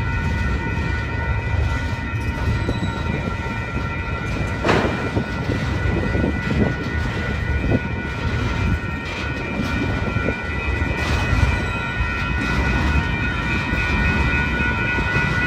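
Freight cars (open gondolas and covered hoppers) rolling steadily past, with a constant rumble of wheels on rail, a few sharp clanks from the wheels and couplings, the loudest about five seconds in, and a steady high-pitched squeal held throughout.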